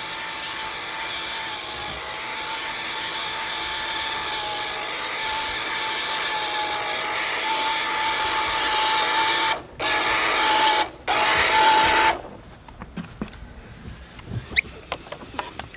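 Small electric motor of a Bass Pro Shops Nitro RC fishing boat running with a steady high whine that grows slowly louder. It cuts out briefly twice near the end and then stops about twelve seconds in, leaving only a few faint clicks.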